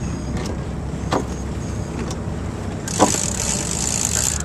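Wind rumbling on the microphone and water rushing past a small sailboat's hull under sail, with two splashes about a second in and about three seconds in. A loud hiss joins from about three seconds in.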